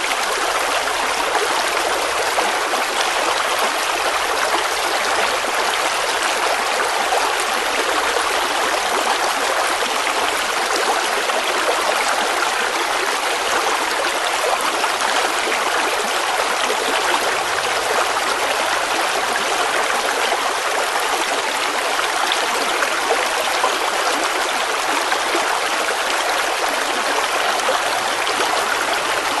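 Running water of a small stream flowing and trickling at a steady level.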